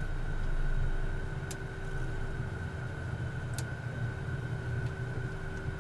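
Cockpit noise of a small aircraft taxiing after landing, engines running: a steady low hum with a constant high whine, and two faint clicks.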